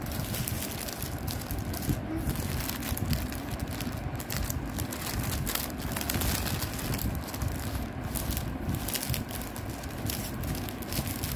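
Clear plastic packing bag crinkling and rustling in bursts of crackles as it is handled and folded around a tray of snack packets.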